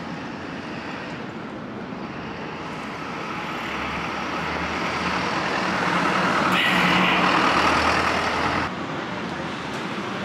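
Street traffic noise with a motor vehicle's engine growing steadily louder over several seconds, then dropping off suddenly.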